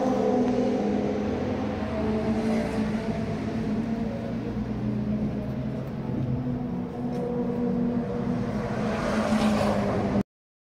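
Historic racing car engines running on the circuit, growing louder near the end as a car comes closer. The sound cuts off suddenly just before the end.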